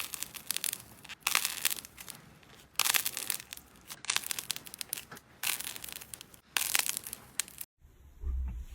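Slime being squeezed and pressed by hand, crackling and crunching in repeated bursts roughly every second and a half. Near the end it cuts to a softer, duller handling sound.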